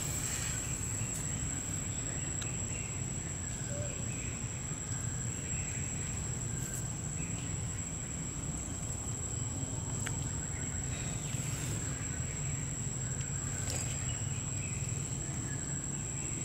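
Outdoor forest background dominated by a steady, unbroken high-pitched insect drone, over a low rumble, with a few faint clicks scattered through it.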